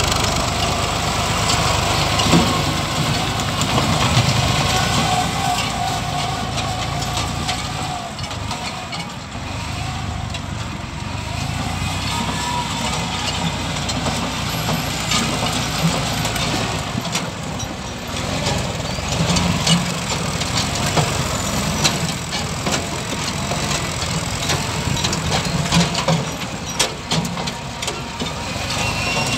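Diesel farm tractor engines running as a tractor pulls a sugar beet harvester through the field, with scattered knocks and clicks from the machinery, more in the second half.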